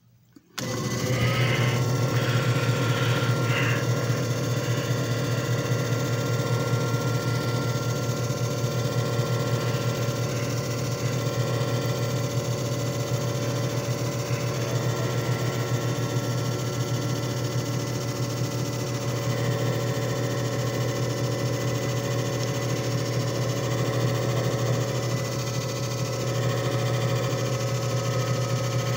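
JFJ Easy Pro disc repair machine switching on about half a second in and running steadily on its 2-minute cycle, a constant motor hum.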